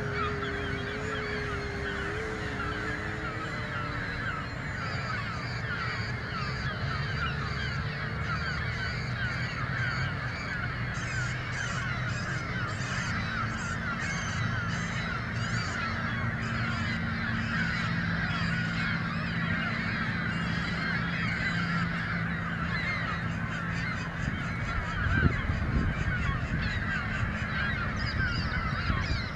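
A large flock of birds calling continuously, many overlapping short honking calls at once. A steady low hum runs underneath for parts of the stretch.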